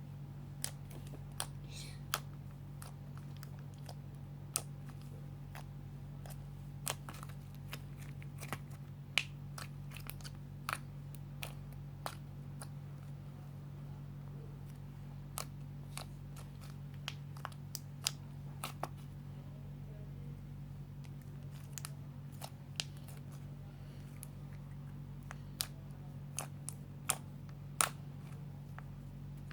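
Slime being squeezed and kneaded by hand, giving scattered small clicks and pops at irregular intervals, over a steady low hum.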